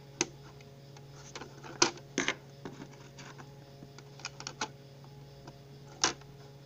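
Plastic Lego bricks clicking and clacking as they are handled and pressed onto a Lego plate: scattered sharp clicks, a pair about two seconds in, a few quick ones around four and a half seconds and a loud one near the end, over a faint low hum.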